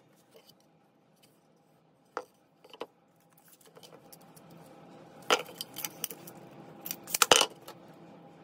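Short metallic clicks and rattles from handling a steel tape measure and a digital caliper on a workbench, a few scattered at first and the loudest cluster about seven seconds in, over a faint steady hum.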